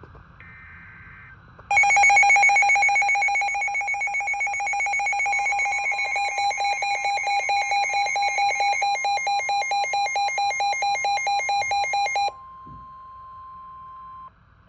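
NOAA Weather Radio alert signalling an incoming severe thunderstorm warning: a short burst of the SAME data header, then a weather radio receiver's loud, rapidly pulsing alarm for about ten seconds. The steady 1050 Hz warning alarm tone comes in under the alarm about five seconds in and sounds on alone for about two seconds after the pulsing stops.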